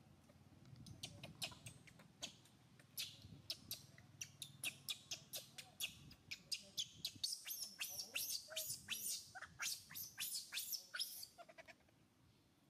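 Baby macaque crying in distress: a rapid run of short, shrill squeals and screeches, a few each second, building in pace and loudness before stopping near the end, with a few lower whimpering coos in between. These are the cries of an infant whose mother is refusing to let it nurse.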